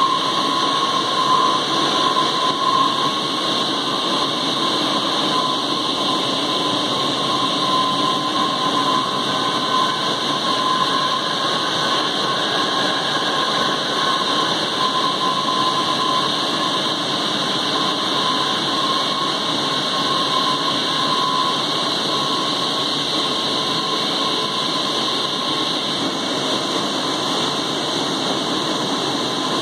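Teknoway T100 direct warping machine running at speed, winding a sheet of yarn onto its warp beam: a steady whir and hiss with a steady high whine over it.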